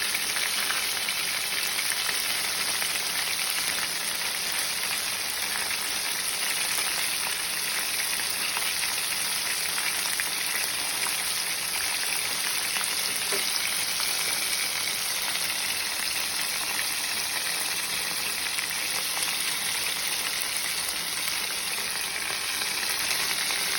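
Flour-coated tuna pieces deep-frying in hot oil: a steady, dense sizzle.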